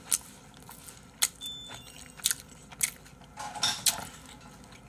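A person chewing a mouthful of kimchi fried rice close to the microphone: soft irregular smacks and crunches, with a few light clicks of a spoon against a bowl.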